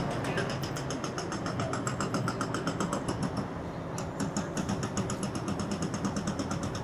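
Rapid, even mechanical ticking at about ten ticks a second, breaking off briefly a little over halfway through and then resuming, over a low rumble of city traffic.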